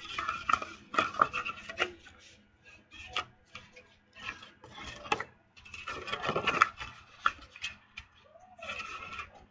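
A bone folder rubbed along creases in paper, in irregular scraping strokes with clicks and rustles of the paper being handled between them.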